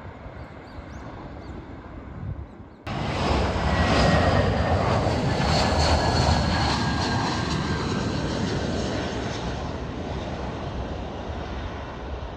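Faint outdoor wind noise, then, about three seconds in, a low-flying Airbus A320-family twin-jet airliner on landing approach cuts in loudly. The jet engines run with a steady rumble and a high fan whine that slowly falls in pitch as the aircraft passes, then the noise gradually fades.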